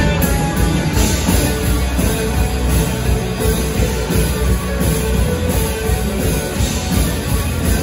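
Live rock band playing loud and without a break: electric guitar, electric bass and drum kit together.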